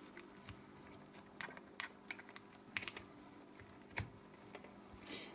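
Faint scattered plastic clicks and taps as a power plug is pushed into a plug adapter, with one sharper click about four seconds in.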